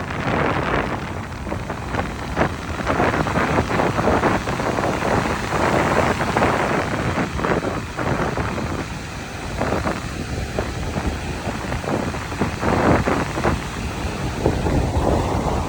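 Strong wind buffeting the microphone: a rumbling rush of gusts that eases briefly around the middle.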